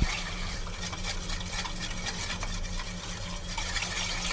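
Plastic spoon stirring granulated sugar into vinegar in a stainless steel saucepan: a soft, continuous scraping and swishing as the sugar grains dissolve, over a steady low hum.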